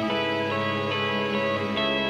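Instrumental background music led by guitar, with long held notes over a changing bass line.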